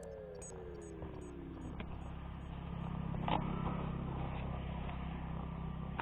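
A pair of falling tones with faint high beeps fades out in the first two seconds. Then a steady low motor rumble builds and holds, with one sharp knock about three seconds in.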